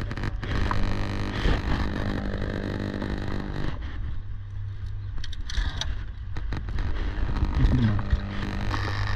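Steady low machine hum with scattered clicks and knocks.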